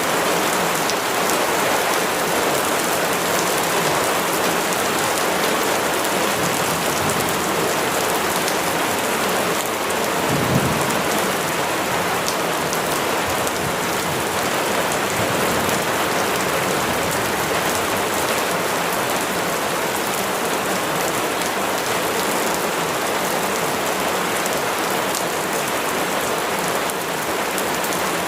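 Steady heavy rain falling, an even hiss, with one brief low thump about ten seconds in.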